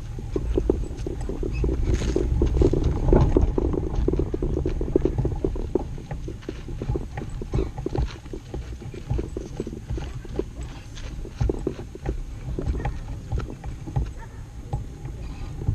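Low wind rumble on the microphone with a scatter of short taps and clicks, louder in the first few seconds.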